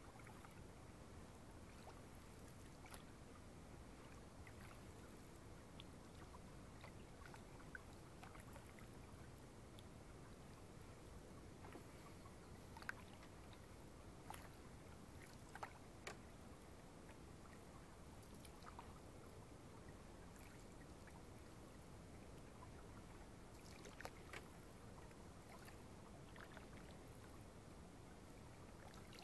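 Faint, quiet canoe paddling on calm lake water: scattered small drips and splashes from the paddles over a low steady hiss.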